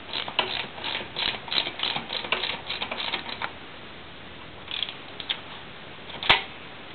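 Ratchet wrench clicking rapidly as a ball-joint nut on an ATV spindle is tightened, for about three and a half seconds. Then come a few single clicks and one sharp, louder click about six seconds in.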